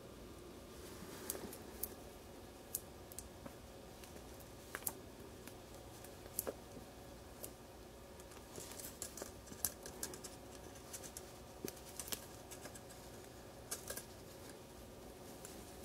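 Faint, irregular small clicks and scratches of hands working small parts: a foam-wrapped 6 mm micro motor being pressed into a carbon fibre quadcopter frame's motor mount, the thin carbon frame ticking against fingers and itself.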